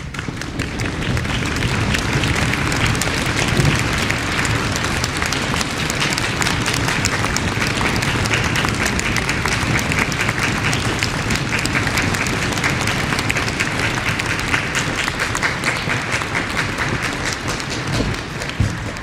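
Audience applause in a concert hall, a dense steady patter of many hands clapping that welcomes the performers onto the stage and dies away near the end.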